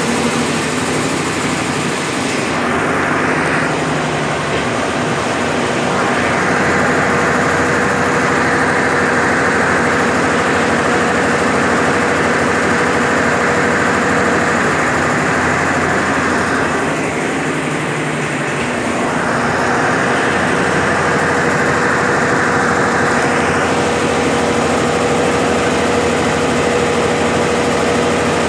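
Brastemp BWL11 11 kg washing machine in its final spin with a load of rugs: a steady, loud running noise of motor and drum with a constant whine. The sound eases briefly twice, about three seconds in and again about two-thirds of the way through.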